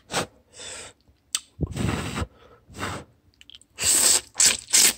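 A person chewing a mouthful of instant ramen noodles close to the microphone, wet mouth noises in irregular short bursts that are loudest near the end.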